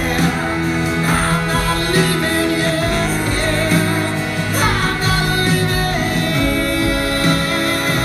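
Live band music: a rock band with acoustic guitar playing on, with singing over it.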